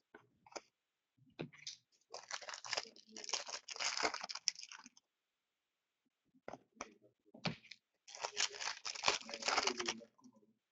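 Trading-card pack wrappers being torn open and crinkled, in two bouts: one from about two seconds in, another starting near eight seconds, with small handling clicks between.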